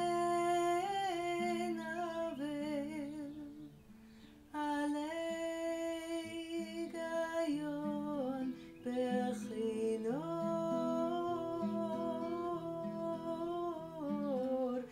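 A woman singing a wordless melody in long held notes, with acoustic guitar chords underneath.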